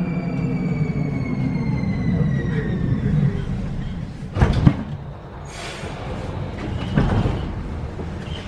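Škoda Varsovia metro train's electric drive whining down in pitch as it brakes to a stop. About four and a half seconds in comes a loud clunk, then a short hiss. About seven seconds in there is a thud as the doors open.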